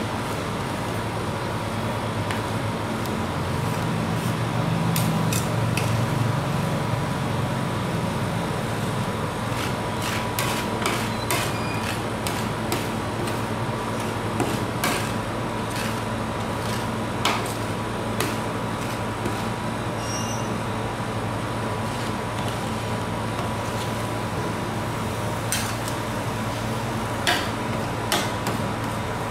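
Metal spatulas scraping and tapping on a frosted ice-cream cold plate as Oreo ice cream is spread thin, with scattered sharp clicks over a steady low hum.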